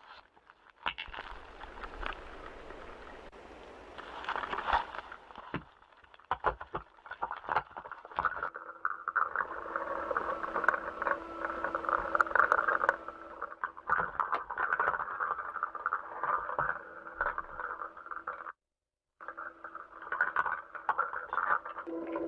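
Noisy audio feed from NASA spacewalk footage: a steady crackling hiss with a held hum and many clicks and pops. It cuts out completely for under a second near the end.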